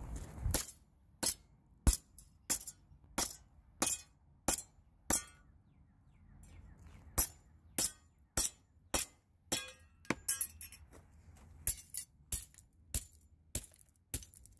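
A hammer repeatedly striking the aluminum shell of a computer mouse on a wooden stump: sharp metallic clinks about every two-thirds of a second, with a pause of about two seconds near the middle.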